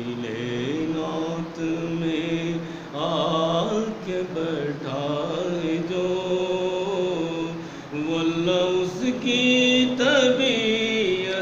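A man's solo voice reciting a naat, an Islamic devotional poem, in a slow melodic chant. There is no accompaniment, and he holds long notes that bend in pitch.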